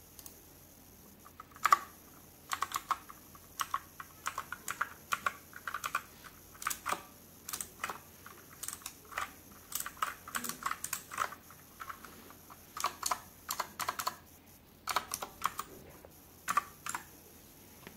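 RK61 60% mechanical keyboard with clicky blue switches being typed on: irregular runs of sharp key clicks with short pauses, starting about a second and a half in.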